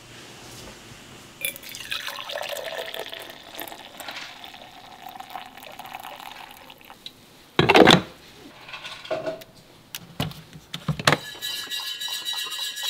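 Hot coffee poured from a glass carafe into a stainless steel tumbler, a steady filling sound lasting about five seconds. A loud knock follows about eight seconds in, and there is clinking near the end.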